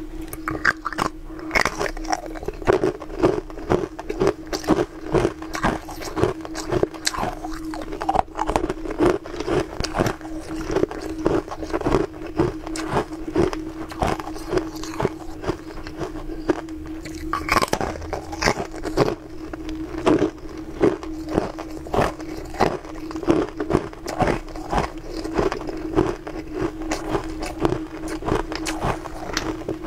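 Close-up biting and crunching of hard pieces of coloured ice, a dense run of sharp cracks and crunches, over a steady hum.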